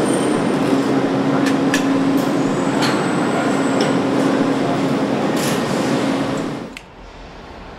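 Engine assembly line factory noise: a steady machine hum with scattered sharp metallic clicks and clanks. It cuts off suddenly about seven seconds in, leaving a quieter background noise.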